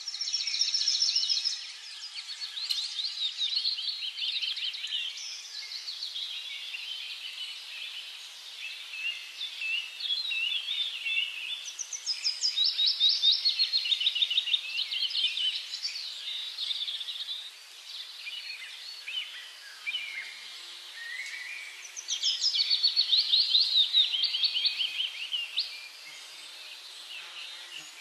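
Several songbirds singing, overlapping chirps and rapid trills. The trilled song comes loudest three times: at the start, about halfway through, and again later.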